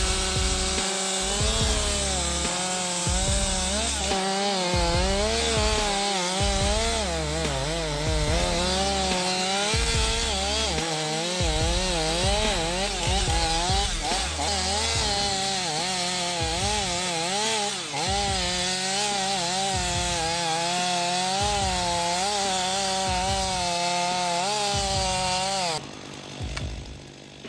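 Chainsaw cutting wood, its engine pitch wavering up and down constantly as the chain loads and unloads in the cut. Near the end the saw's sound drops away suddenly.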